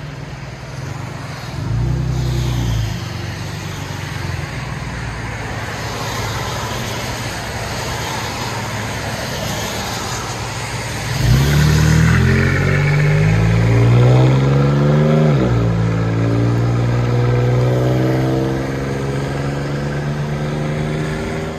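Straight-piped exhaust of a 2004 Nissan Xterra, with a Y-pipe and dual straight pipes into quad tips, running with a short rev early on. About halfway through it gets louder and rises in pitch for about four seconds, drops suddenly, then holds a steady drone.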